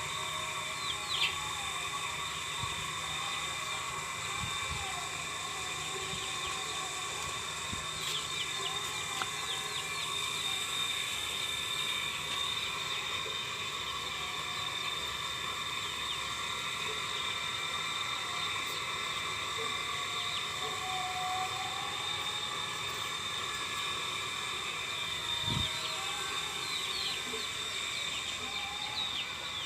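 Outdoor ambience: scattered bird chirps over a steady high-pitched drone.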